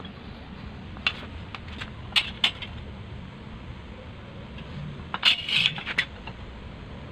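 Light metallic clicks and clinks of a steel ruler and steel square being set against and lifted off square steel tube: a few scattered ticks in the first half, then a quick cluster of clinks about five seconds in.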